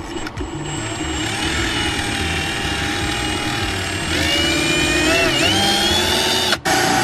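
Cordless drill boring a pilot hole through a truck's sheet-metal firewall, its motor whining steadily. The whine climbs in pitch about four seconds in, sags briefly as the bit bites, and cuts out for a moment near the end.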